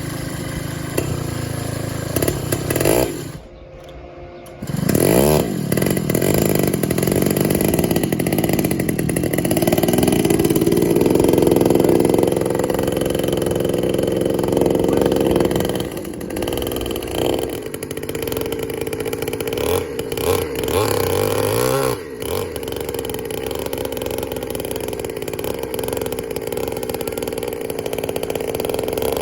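A 93cc two-stroke chainsaw engine powering an RC pulling vehicle runs hard under load, its pitch rising and falling. The sound drops away sharply for about a second near four seconds in, then comes back with a rev.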